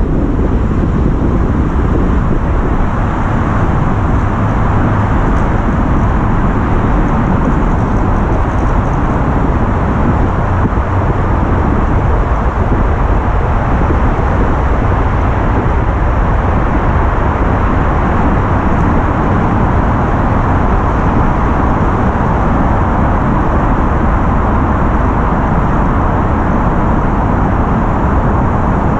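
Steady, loud rushing noise of wind and wet-road tyre noise on the microphone of a rider's camera while riding, unbroken throughout.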